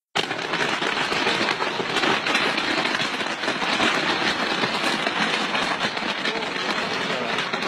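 A ladder of fireworks burning as it climbs into the sky: a dense, continuous crackle of many small pyrotechnic charges going off in rapid succession, steady throughout.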